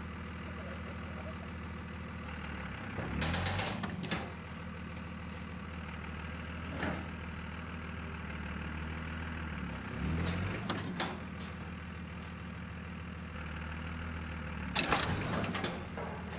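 Second-generation Dodge Ram's 5.9 L Cummins inline-six turbodiesel running steadily. Four short, louder surges break in as it drags a steel shipping container sideways on a chain, with the container's metal scraping and creaking under the pull.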